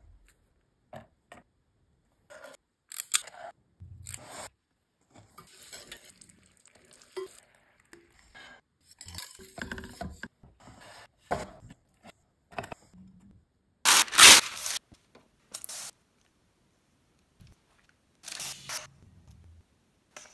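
Kitchen prep sounds cut together: short scrapes, clinks and stirring from a whisk and utensils in a mixing bowl and a stainless saucepan, with brief silences between them. The loudest is a short rushing noise about 14 seconds in.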